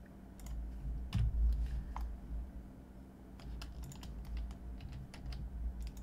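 Scattered keystrokes on a computer keyboard, sparse at first and coming faster in the second half, over a low steady hum.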